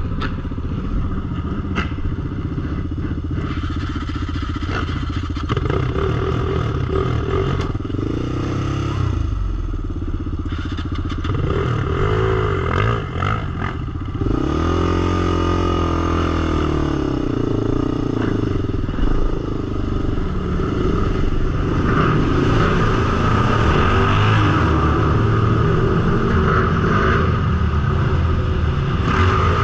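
Sport ATV (quad) engine running and revving, its pitch rising and falling several times. It gets louder and higher from about halfway through.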